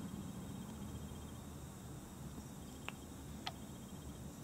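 Quiet room tone: a low steady hum, with two light clicks about three and three and a half seconds in.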